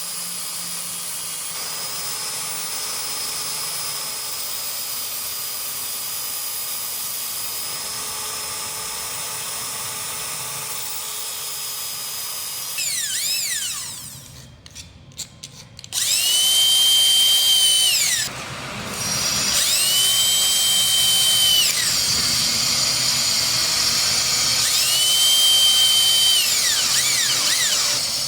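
Electric drill motor running free at a steady high whine, then winding down. It is then triggered three more times, each time spinning up to a steady whine, holding for a couple of seconds and winding down.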